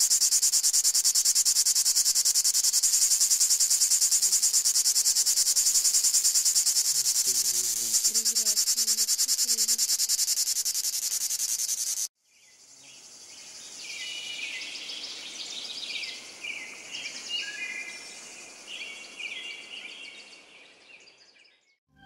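Dog-day cicada singing: a loud, high, rapidly pulsing buzz that cuts off suddenly about halfway through. After it, a much quieter stretch with birds chirping in short, varied phrases.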